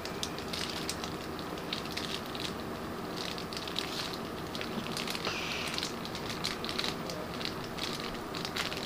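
Plastic Twinkie wrapper being crinkled and handled, an irregular run of small crackles and ticks.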